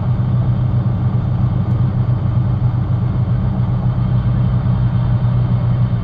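Truck's diesel engine running steadily at low speed, a constant low hum, as the truck crawls along on ice with its axle locks engaged.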